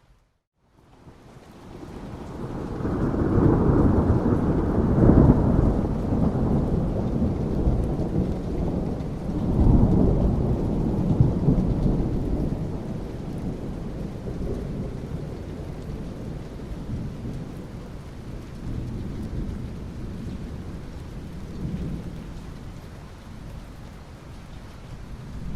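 A long roll of thunder over steady rain: after a brief moment of silence at the very start, the rumble builds from about a second in, peaks twice, and slowly dies away while the rain goes on.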